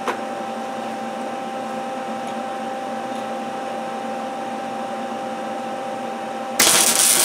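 MIG welder humming steadily with its fan running. About six and a half seconds in, a single tack weld is struck: a loud burst of crackling arc hiss lasting about a second.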